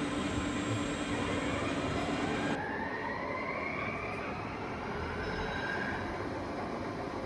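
Workshop machinery noise: a steady hum that cuts off abruptly about two and a half seconds in, then a motor whine rising in pitch over the next few seconds, as of a machine spindle running up to speed.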